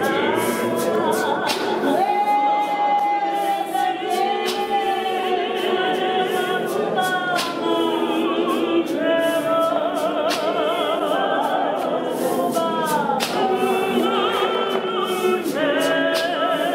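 Congregation singing a hymn unaccompanied, many voices in harmony, with long held notes that waver in vibrato. Occasional sharp knocks come through the singing.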